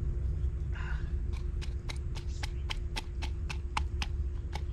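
Chili peppers being pounded to crush them, a steady knocking of about three to four strokes a second that starts a little over a second in.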